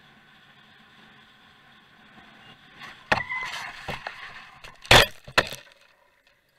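Vehicle crash heard from an onboard camera: a sharp impact about three seconds in with a brief ringing, then more knocks and scraping as it tumbles off the road. The loudest blow comes about two seconds later, a second one follows right after, and then the sound cuts out.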